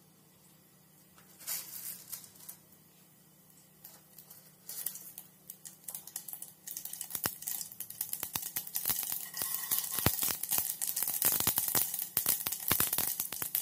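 Mustard seeds spluttering in hot oil in an aluminium pressure cooker: scattered pops and a faint sizzle at first, then from about seven seconds in a fast, dense crackle of popping seeds that grows louder. The popping is the sign that the oil is hot enough for the tempering.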